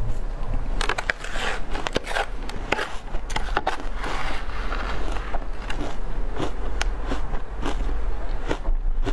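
Close-miked crunching and cracking of ice being chewed, a quick series of sharp cracks with gritty grinding between them. A metal spoon scrapes and scoops through the matcha-dusted ice in the bowl.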